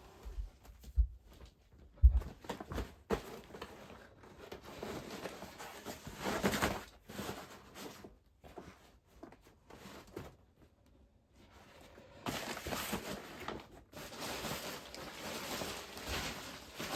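Foam sleeping mat and backpack fabric rustling and scraping as the rolled mat is unrolled and pressed into shape inside a frameless backpack, with a few soft knocks in the first couple of seconds.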